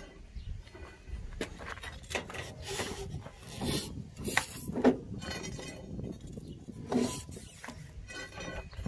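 Irregular clinks, knocks and scraping of metal tools and parts being handled, with a few sharper knocks and a short stretch of scraping about three to four and a half seconds in.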